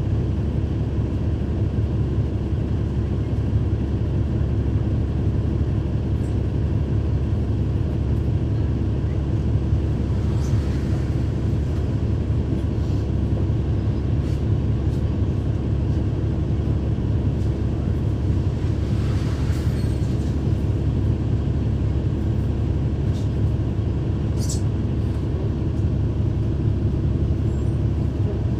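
Cummins ISL9 diesel engine of a 2012 NABI 40-foot transit bus running steadily, heard from inside the cabin. A few brief clicks occur, and a short hiss comes about two-thirds of the way through.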